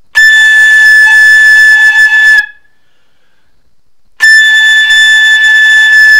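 Flute headjoint blown on its own with its open end uncovered and a high-register embouchure: two long, steady high notes of about two seconds each, with breath noise. The pitch sits a little below A and does not reach the centre of the note, only settling near it when blown hard.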